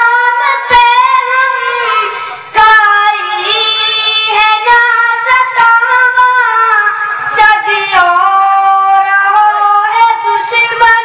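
A boy singing a nazm (Urdu poem) into a microphone in a high, melodic voice, holding long notes that bend in pitch, with a short breath about two seconds in.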